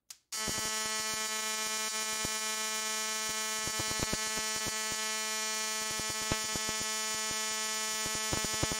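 Yamaha jet ski ignition coil, pulsed by a 555-timer MOSFET driver, firing a spark across the gap of an inline spark tester: a steady electrical buzz with irregular sharp snaps. It starts about a third of a second in, just after a click as the circuit is switched on. The spark runs steadily, the sign that the coil is working fine.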